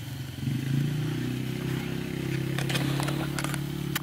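A steady low motor hum, with a few light clicks a little past halfway through.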